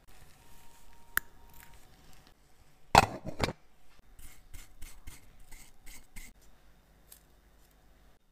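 Sharp clicks and taps of small metal watch parts and tools being handled, with a louder double knock about three seconds in and a run of quick clicks after it.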